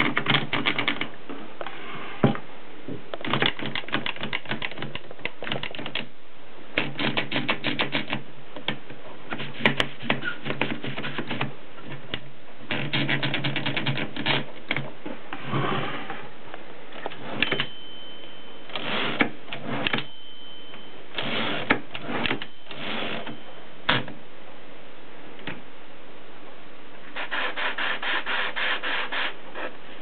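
Mercedes Prima manual typewriter being typed on: quick runs of sharp keystroke clacks as the typebars strike the platen, in bursts with short pauses between them. A brief high ringing tone sounds twice around the middle.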